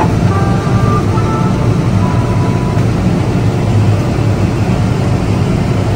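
Steady low rumbling noise heard from inside an enclosed Ferris wheel gondola as it turns. A few faint short high tones sound in the first two seconds.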